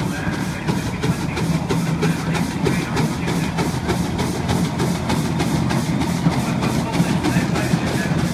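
Steam traction engine working hard under load, dragging the sledge, its exhaust beating evenly at about four beats a second over a steady low hum.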